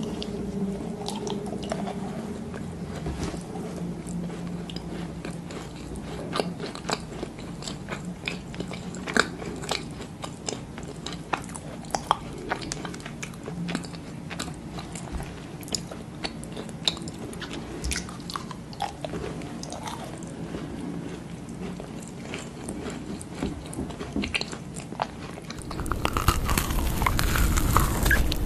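Close-miked eating sounds of macarons: crisp shells crackling as they are bitten, then soft chewing, in many small irregular crunches over a faint steady hum. Near the end the eating sounds suddenly get louder.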